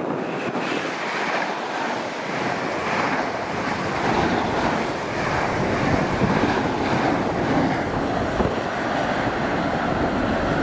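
A train running through the station: a steady rushing rumble of wheels on the track, without tones or pauses.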